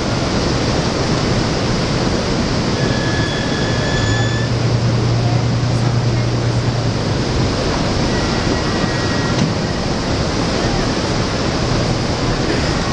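Loud steady rushing noise with the low, steady hum of a tour boat's engine under it. The hum swells from about four to seven seconds in.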